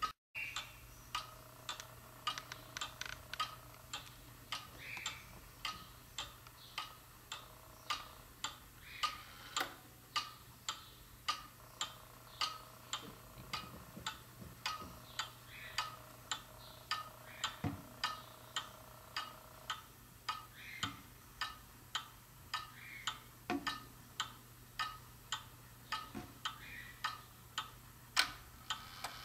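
1970s Silco pendulum wall clock's movement ticking steadily, about two ticks a second, with one louder click a little before the end.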